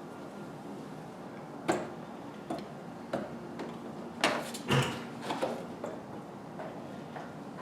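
Irregular sharp clicks and knocks of hard parts and hand tools being handled during an air intake install, over a steady background hum.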